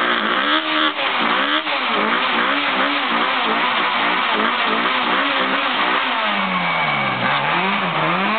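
A car engine held at high revs during a front-wheel burnout, its pitch swinging up and down about twice a second and then in slower, deeper swings near the end, over the screech of the spinning front tyres.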